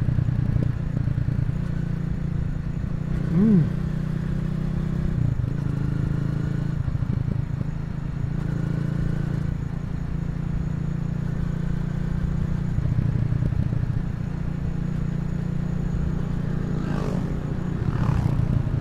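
Honda CRF250L's single-cylinder 250 cc engine running steadily under way, with one quick rise and fall in revs about three and a half seconds in.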